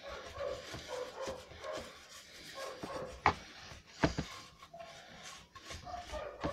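A flat paintbrush scrubbing a solvent-wet circuit board, with short squeaky whines throughout and two sharp knocks about three and four seconds in.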